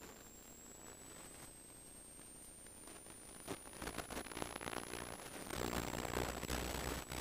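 Race car running, with a thin high whine that climbs slowly in pitch and drops suddenly about five and a half seconds in, after which a low rumble grows louder.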